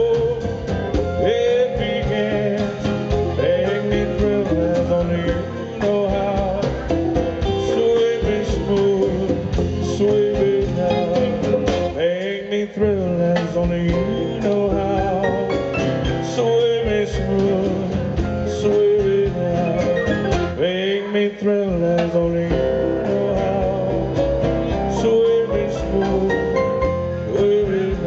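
Live band playing a cha-cha-style Latin pop song, with singing over guitar, bass and drums.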